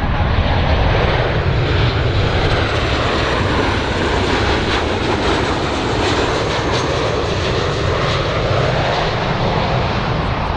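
Jet engine noise from a Boeing 737-800 BBJ2 on final approach with gear down, its twin CFM56-7B turbofans running at approach power. A steady rushing engine sound with a faint high whine.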